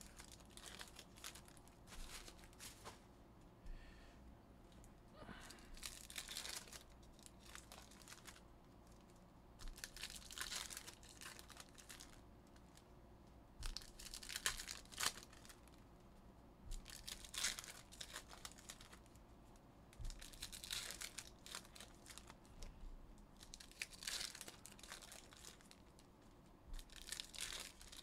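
Panini Prizm football card packs being torn open by hand, their foil wrappers crinkling in short bursts about every three seconds.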